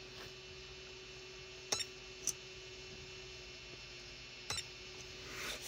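Handheld battery spot welder firing three times: short, sharp clicks as its copper probes tack the CR2032 coin cell's tab to the tracker's circuit board, over a faint steady hum.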